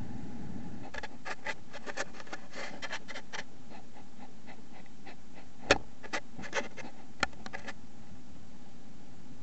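Irregular sharp clicks and scratches over a steady hiss, about a dozen of them clustered in the first few seconds, with one louder click about halfway through.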